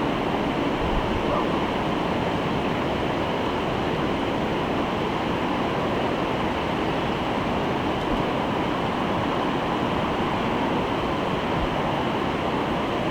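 Steady rush of river water, an even noise that holds constant throughout.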